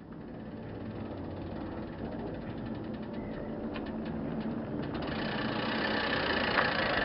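Ceepo Shadow-R triathlon bike being ridden: steady tyre and wind noise that grows louder as it picks up speed, with a run of faint clicks around the middle.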